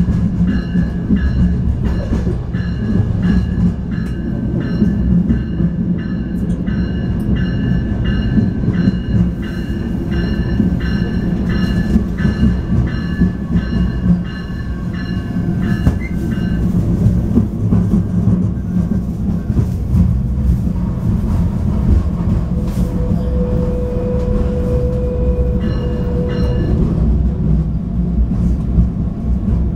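Inside a moving NJ Transit River Line diesel light rail car (Stadler GTW): steady low rumble of the diesel engine and wheels on the rails. Through the first half a bell rings at an even pace, then stops. About three-quarters of the way through, a steady tone holds for a few seconds.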